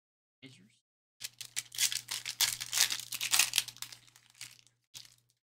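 A trading-card pack wrapper being torn open and crumpled in the hands: a dense crinkling starts about a second in and runs for about three and a half seconds, with a brief rustle just before the end.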